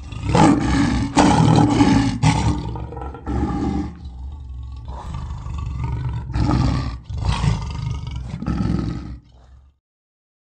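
A big cat roaring, a run of loud rasping roars with short breaks between them, stopping a little before the end.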